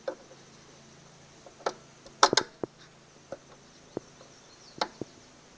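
Pliers gripping and knocking against a spring and metal parts under a Honda mower deck as the spring is worked loose. About eight sharp, uneven clicks, the loudest cluster a little over two seconds in.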